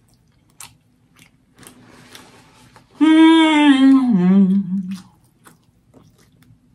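Small wet chewing and lip-smacking sounds of someone eating. About three seconds in comes a loud hummed "mmm" of enjoyment, held for about a second and then stepping down to a lower note for another second, before the quiet chewing resumes.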